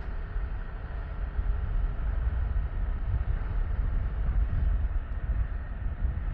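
Riding noise from a Yamaha Tricity 155 scooter on the move: a steady, fluttering low rumble of wind and road noise on the camera's microphone, with the scooter's engine underneath. It grows a little louder about a second in.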